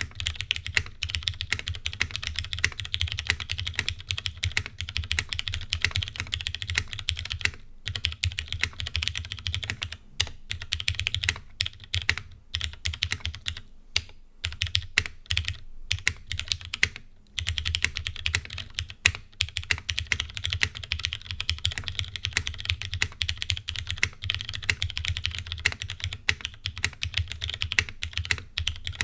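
Typing on a Noxary 280 mechanical keyboard with Cherry MX Brown switches: a dense run of rapid key clacks, broken by a few short pauses around the middle.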